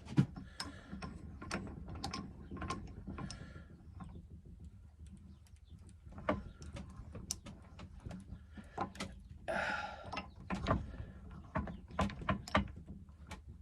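Irregular clicks and knocks of pen-kit parts being pressed together on a lathe used as a pen press, with 3D-printed press fittings, and a short scraping rasp and a thump near the ten-second mark.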